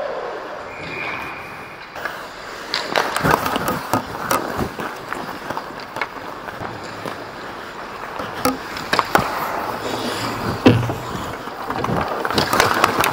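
Ice hockey skate blades scraping and carving on the ice, broken by sharp clacks of sticks and puck hitting sticks, pads and the boards, strongest about a second before the end.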